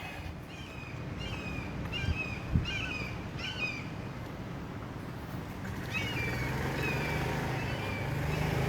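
A bird calling over and over, short down-slurred chirps about twice a second, pausing and then starting again. A low engine hum from a vehicle grows near the end.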